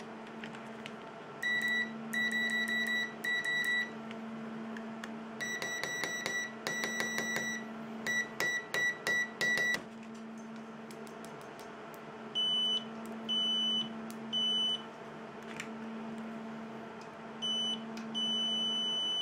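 Continuity-test beeps from two digital multimeters as the probe tips touch metal tweezers. First an ANENG meter beeps many times in quick groups, with light clicks of the probe tips. Past the middle, the Bside ADMS7 (MUSTOOL MT77) smart multimeter gives fewer beeps at a higher pitch; its continuity test is very slow. A faint steady hum lies underneath.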